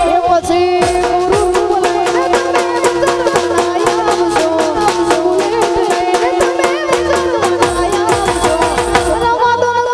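Live Gujarati garba folk music: a woman sings through a microphone over a steady drum beat and a held note underneath.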